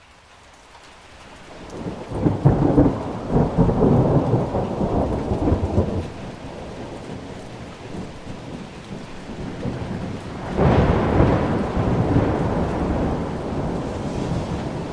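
Thunderstorm: steady rain hiss that swells up at the start, with two rolls of thunder. The first is a long rolling rumble a couple of seconds in; the second starts with a sudden clap past the middle and rumbles away slowly.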